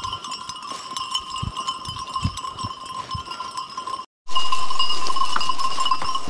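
Bells on a flock of sheep ringing and clanking without a break. The sound cuts out briefly about four seconds in and comes back louder.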